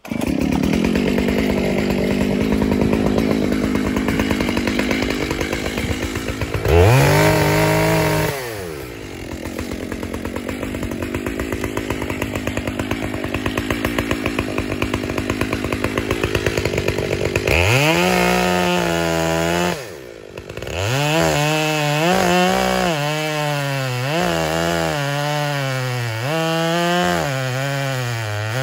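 Makita (Dolmar-built) chainsaw running steadily, revved briefly about seven seconds in. From about eighteen seconds it is sawing into the base of a big sugar maple in a felling cut, its pitch rising and falling about once a second as the chain loads and frees in the wood.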